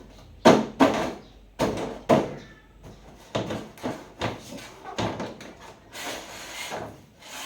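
An irregular series of sharp knocks and clatters, hard objects being handled and set down, the loudest near the start.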